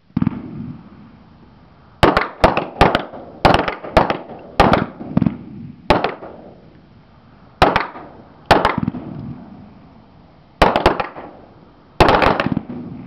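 Rifle fire from several shooters on a range: about twenty sharp shots at an uneven pace, some in quick runs and some singly, each followed by a short echo.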